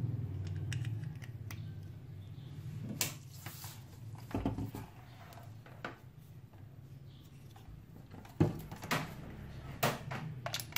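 A steady low hum with scattered sharp clicks and knocks, the loudest about eight seconds in.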